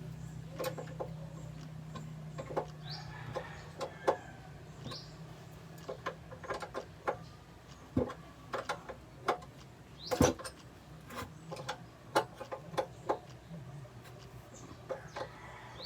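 Scattered clicks and knocks of tools and metal parts being handled while a new carburetor is fitted to an outboard motor, with a low steady hum through the first few seconds and a couple of short bird chirps.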